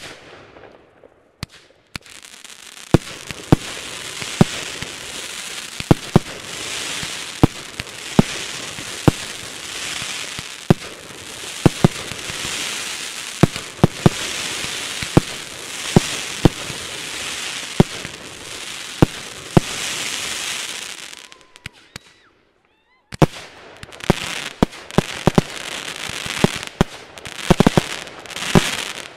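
Fireworks display: a rapid series of sharp bangs from aerial shells bursting, over a continuous hiss and crackle of glittering stars. The sound cuts out for about a second a little past two-thirds of the way through, then the bangs and hissing resume.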